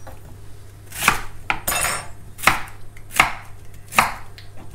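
Kitchen knife cutting through a fennel bulb and striking a wooden chopping board, about six separate cuts at an unhurried pace, roughly one every two-thirds of a second, as the bulb is cut into wedges.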